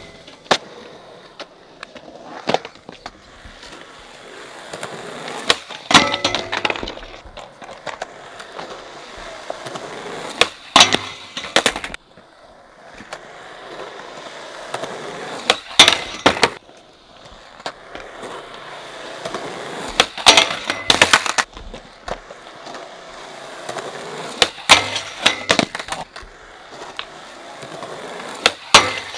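Skateboard wheels rolling on concrete, broken every four to five seconds by sharp clacks of tricks being tried on a metal rail: the tail popping, the board knocking onto the rail and slapping down on landing.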